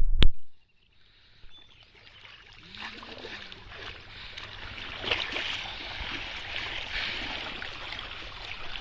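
Water splashing and sloshing, rising from quiet to a steady irregular churn. A sharp click comes just at the start, followed by a moment of near silence.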